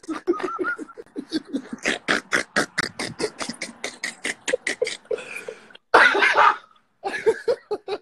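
Hearty laughter: a long run of quick, breathy ha-ha bursts, about five a second, then a louder outburst about six seconds in.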